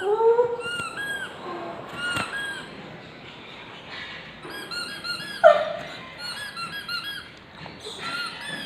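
Squeaky toy squeaking over and over in short, quick squeaks, with one louder squeak about halfway through.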